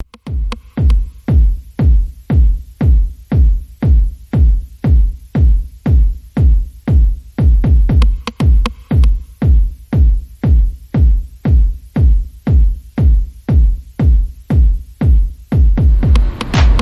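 Background electronic music: a steady, heavy kick-drum beat about twice a second with light high ticks over it.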